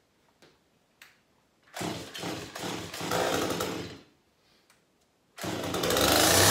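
Stihl two-stroke chainsaw being started: after a few light clicks it fires and runs for about two seconds, then dies. On the next try, about five and a half seconds in, it starts and keeps running loudly, revving up near the end.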